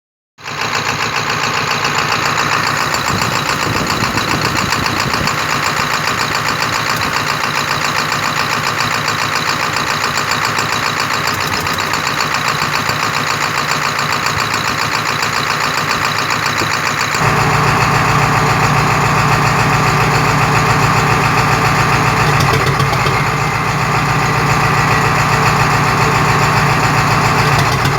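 A 7.3-litre V8 engine running steadily with a fast even pulse, which the owner believes is making a bad sound. About two-thirds of the way through it becomes louder, with a stronger low hum.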